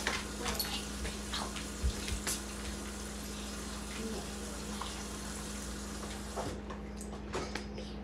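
A steady rushing noise of running water, like a tap, that stops sharply about six and a half seconds in, over a low steady hum and a few light knocks.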